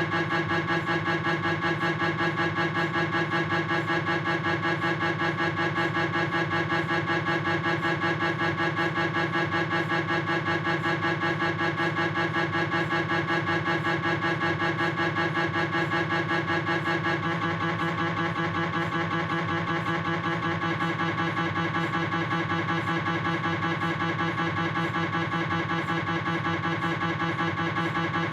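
Philips 1.5 T MRI scanner's gradient coils running a proton-density fat-saturated coronal knee sequence: a steady, very fast pulsing buzz with a musical tone. It turns slightly duller and quieter a little past halfway.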